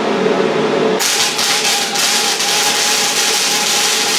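Gasless flux-cored MIG welding on a steel oil drum: the arc strikes about a second in and then crackles steadily as the wire burns in.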